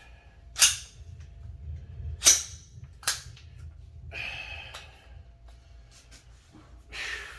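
Sharp metallic clacks of a firearm's action being worked and checked during a safety check: three crisp clacks in the first three seconds, a short scraping rustle about four seconds in, and another clack near the end.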